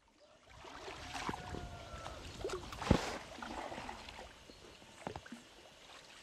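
Paddles dipping and water splashing around inflatable rubber rowboats, with a sharp knock near the middle.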